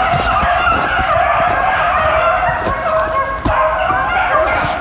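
A pack of beagles in full cry, many baying voices overlapping at once: the hounds are running a rabbit on its scent trail, bringing it back around toward the hunters.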